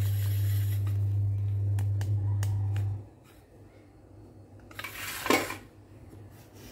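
A steady low hum that cuts off suddenly about three seconds in, then light clicks and knocks of a kitchen knife and potatoes being handled for slicing by hand, with one brief scrape a little past the five-second mark.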